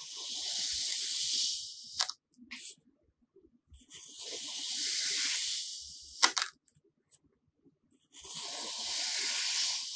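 A knife slicing slowly through a packed block of kinetic sand, three times: each cut is a long hiss of about two seconds that swells and fades, ending in a sharp tap.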